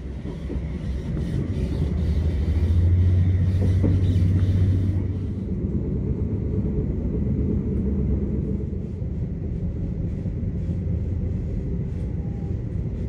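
Steady low rumble of a moving bus or train heard from inside, with a deeper drone that swells louder for a couple of seconds about two and a half seconds in.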